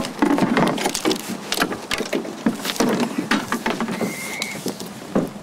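Hands pressing and smoothing a paper race number onto a canoe's hull: irregular crinkling, rustling and small taps. A brief high steady tone sounds about four seconds in.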